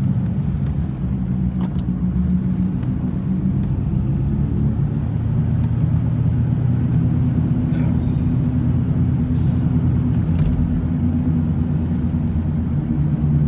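1996 Ford Thunderbird's 4.6-litre V8 running while the car is driven, heard as a steady low drone of engine and road noise inside the cabin.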